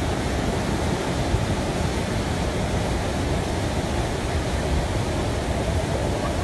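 Floodwater rushing past in a fast torrent: a loud, steady, dense noise, heaviest at the low end.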